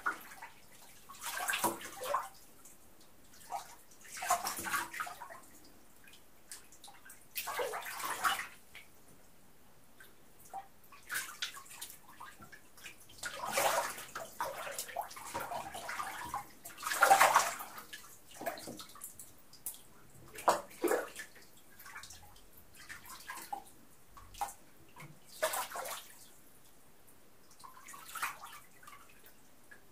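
Water sloshing and splashing in a filled bathtub as a person moves about in it, in irregular splashes with short lulls between; the loudest splash comes a little past halfway.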